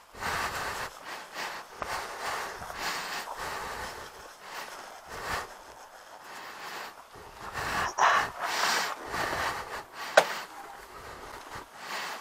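Close, irregular rustling and breathy puffs of noise on a body-worn camera's microphone, with a sharp click about ten seconds in.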